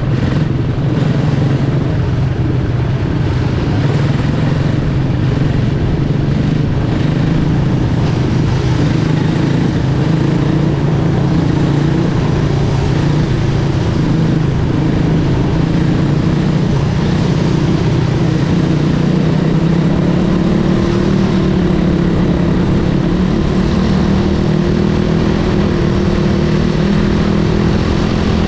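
Quarter midget's single-cylinder Briggs & Stratton Animal four-stroke engine running steadily, heard from on board, its pitch climbing gradually over the last third.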